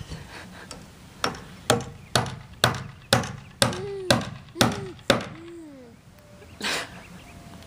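A series of about nine sharp, loud blows, roughly two a second, each with a short ringing tail, then one softer noisy burst near the end. A few short rising-and-falling baby vocal sounds fall between the later blows.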